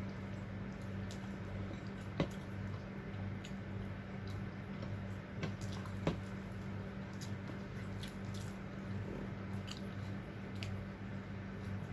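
Close-up chewing and wet mouth sounds of someone eating fried fish and rice, with scattered small clicks and two sharper clicks about two and six seconds in, over a steady low hum.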